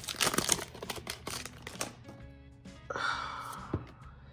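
Crinkling, rustling handling of a foil Pokémon booster pack for about the first two seconds, then background music with steady held notes.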